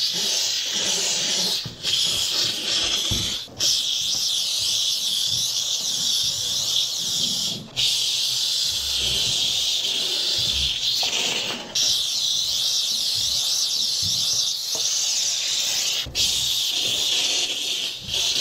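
Bissell SteamShot Deluxe handheld steam cleaner jetting steam from its nozzle in a steady, loud hiss. The hiss cuts off briefly about five times and starts again.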